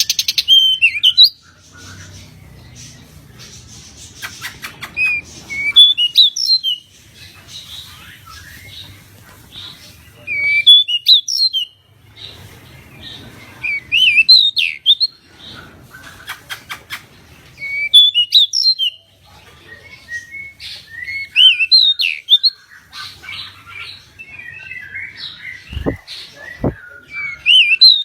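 Pied bushchat (decu) singing short warbling song phrases, each about a second long, repeated every three to four seconds. Twice there are brief runs of rapid ticking between phrases, and two low thumps come near the end.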